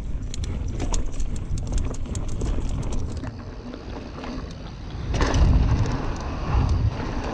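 Specialized Stumpjumper Comp mountain bike descending a dirt trail: tyre rumble and a rattle of sharp clicks from the bike over bumps, under wind buffeting the microphone. The rush grows louder about five seconds in as the bike speeds down a steep drop.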